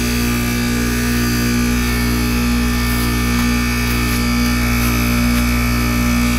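Goodman heat pump's outdoor unit running in defrost mode, a steady hum.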